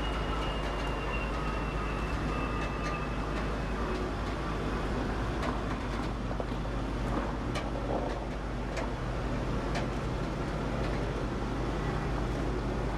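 Heavy-haul tractor-trailer's diesel engine running as the rig pulls a long multi-axle trailer slowly past, a steady rumble. A faint whine falls slowly in pitch over the first few seconds, and a few sharp clicks sound here and there.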